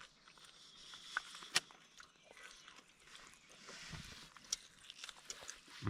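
A person chewing and eating food close to the microphone, with faint wet clicks and soft crunches.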